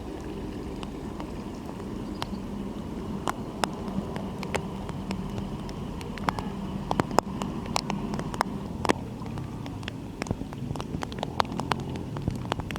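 Rain falling steadily, with a dense low hiss and irregular sharp ticks of drops landing close by, the ticks coming more often in the second half.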